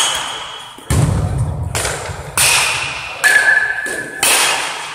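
Baseball bats striking balls in a large indoor batting hall: five sharp cracks less than a second apart, some with a brief ringing ping, each echoing off the hall.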